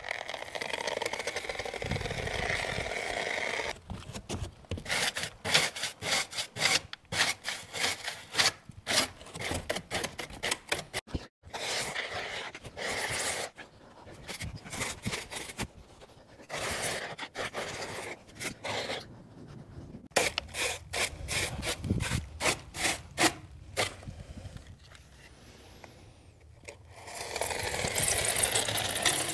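Foam gun dispensing expanding foam sealant into the seams between foam deck panels in hissing spells, broken up by runs of quick scratchy rubbing and scraping strokes.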